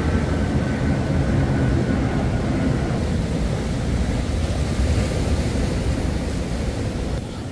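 Steady low roar of ocean surf breaking and washing around a rock jetty, with a faint high whine that fades out about three seconds in.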